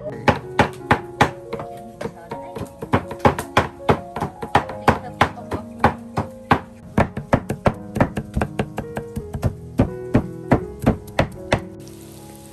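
Cleavers chopping on a wooden chopping block: a quick, uneven run of sharp knocks, about four a second. Near the end the knocks stop and tofu sizzles as it fries in oil in a wok.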